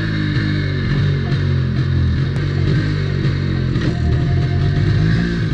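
Background rock music with guitar and bass.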